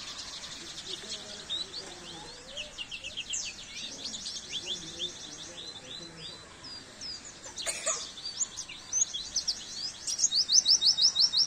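White-eye (pleci) singing a fast, high chirping song of quick sweeping notes and trills, ending in a loud, even run of rapid notes near the end. A single sharp click sounds about eight seconds in.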